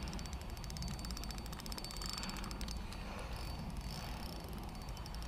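Fishing reel clicking rapidly, a fast ratchet-like run of clicks, while a hooked carp pulls against the bent rod; the clicking thins out in the last couple of seconds. Low wind rumble on the microphone underneath.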